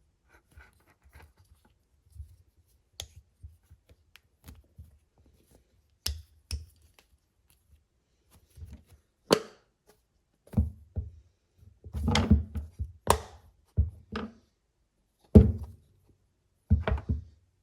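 Irregular knocks, clunks and sharp clicks from a magnetic ring phone holder and its parts being handled. They are sparse and light at first, become louder and more frequent from about nine seconds in, cluster around twelve to thirteen seconds, and the loudest comes at about fifteen seconds.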